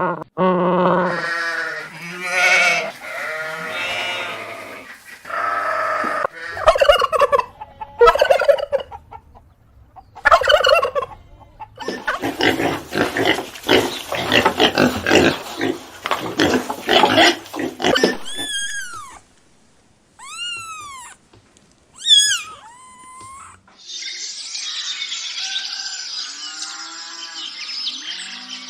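A succession of different farm animal and poultry calls, one clip after another: pitched calls first, then a long rapid rattling call, then a few short arching chirps, and finally a noisy stretch of overlapping calls.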